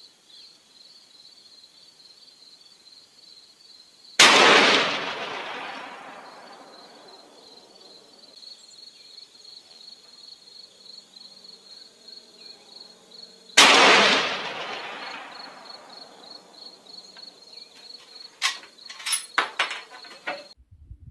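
Two shots from a .416 Ruger Ruger M77 Hawkeye Guide Gun fired without a muzzle brake, about nine seconds apart, each with a long echo that dies away over a couple of seconds. Insects chirp steadily underneath, and a quick run of sharp clicks and knocks comes near the end.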